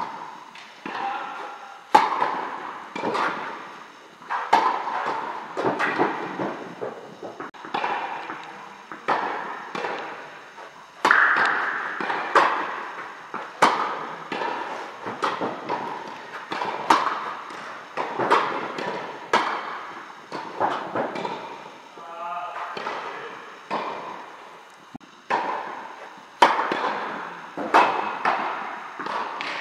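Tennis rally: repeated sharp racket strikes and ball bounces, roughly one a second, each echoing in a large indoor tennis hall.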